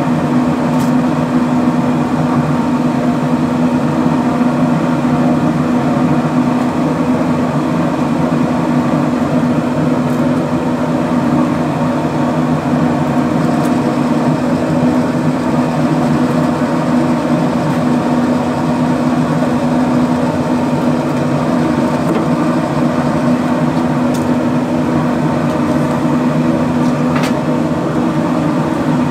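Pellet smoker's fan humming steadily while the smoker is lit and smoking. A few light clicks are heard as sausages are set on its metal grate.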